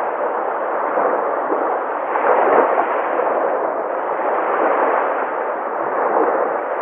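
Sea waves breaking in a continuous wash of surf, swelling a little louder about two and a half seconds in.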